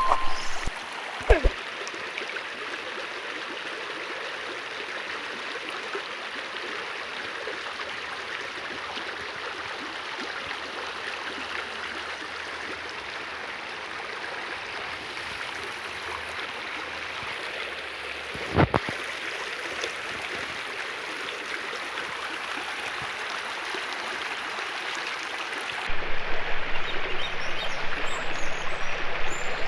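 Steady rushing water, like a flowing stream, with a sharp knock about a second in and another just past the middle. Near the end it turns louder and choppier, and a low hum comes in.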